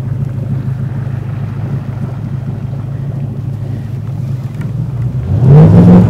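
A boat's motor running steadily under way, with wind on the microphone, then revving up sharply about five seconds in, its pitch rising.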